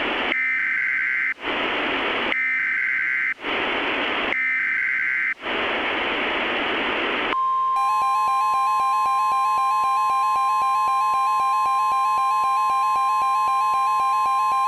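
Emergency Alert System header: three data-tone bursts, each about a second long, with radio static hiss between them. About halfway through, a loud steady alert tone starts, joined by a harsh, rapidly pulsing tone.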